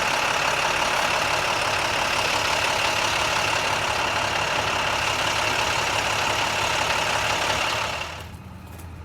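Steady noise of an idling engine, a low hum under a loud even hiss, which drops away sharply about eight seconds in.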